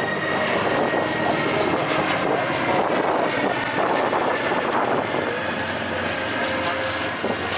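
Piston-engined propeller aircraft flying over with a steady engine drone.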